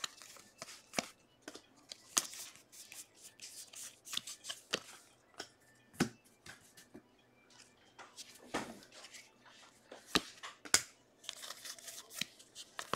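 Baseball trading cards handled by hand: a string of light rustles and clicks as cards slide and flick against each other, with a few sharper taps about six seconds in and twice near ten to eleven seconds as cards are set down on a stack.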